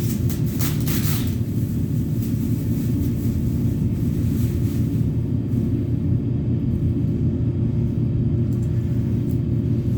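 Steady low mechanical rumble of running machinery, with a few brief hisses in the first second.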